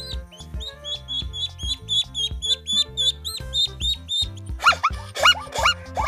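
Ducklings peeping rapidly, about four short high peeps a second, over background music with a steady low beat. About four and a half seconds in, the peeping gives way to louder, lower-pitched repeated animal calls.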